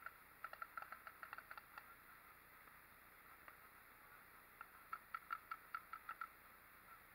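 Paintball markers firing some way off: two quick bursts of faint popping, about ten shots each, one at the start and one about five seconds in.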